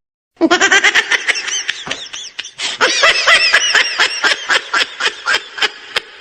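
A high-pitched laugh, a fast run of short "ha" bursts several times a second, starting about half a second in after a brief silence.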